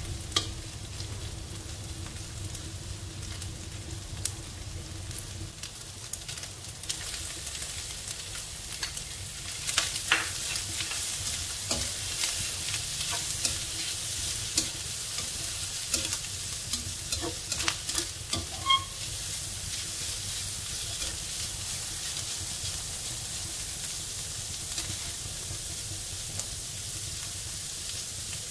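Pork belly and dried shrimp sizzling in hot oil in a wok while a spatula stirs and scrapes through them, with scattered clacks of the spatula against the pan. The sizzle grows louder about ten seconds in.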